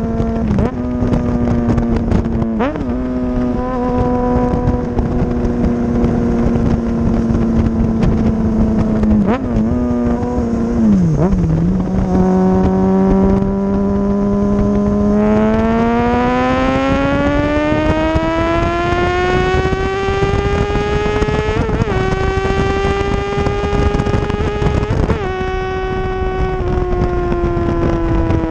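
2010 Kawasaki ZX-6R's 600 cc engine running under way. It holds a steady pitch, dips briefly about ten seconds in, then climbs smoothly for several seconds as the bike accelerates and settles at a higher pitch, with a couple of short wobbles near the end.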